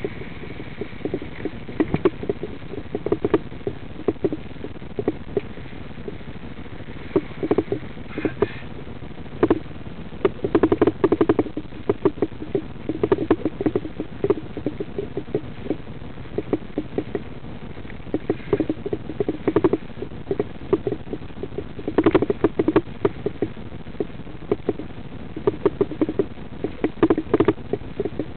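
Stationary car idling, a steady low hum, with irregular bursts of crackling clicks throughout.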